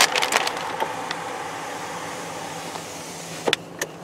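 Steady hum of a car cabin: the engine and ventilation fan running. There are a few rustles and clicks in the first half-second and two short clicks near the end, and the hum slowly fades.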